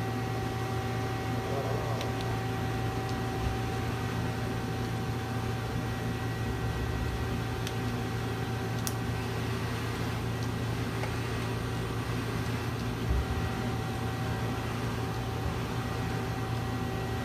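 2007 Mazak Nexus QTN 250MSY CNC lathe running: a steady low hum with several steady whining tones above it, and a light click about nine seconds in.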